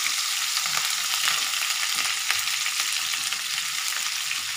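Stuffed brinjals sizzling as they fry in hot oil in a non-stick pan, with light scrapes and knocks from a spatula moving them around.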